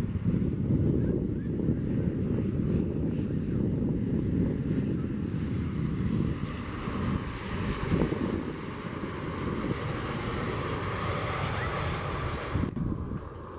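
Boeing 737 jet engines on final approach and landing, over a constant low rumble; a high whine swells from about midway, with whining tones sliding downward as the airliner passes close by. The sound cuts off abruptly near the end.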